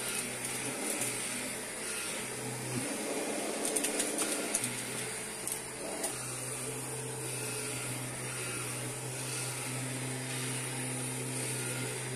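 Kirby G5 upright vacuum cleaner running steadily with a high motor whine. A cluster of sharp clicks comes about four seconds in, and another click about six seconds in.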